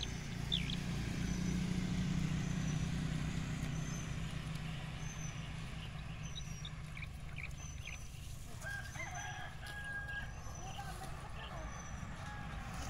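Rural yard ambience: a rooster crowing once about two-thirds of the way in, over a low steady rumble and a short high chirp that repeats about once a second.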